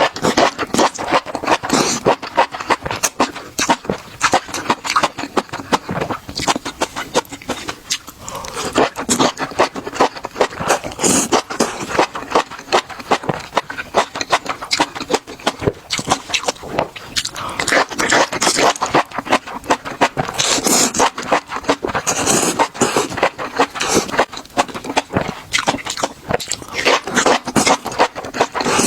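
Close-miked eating sounds: rapid crunching and chewing of food, a dense run of crackly clicks with brief pauses about a third and about two-thirds of the way through.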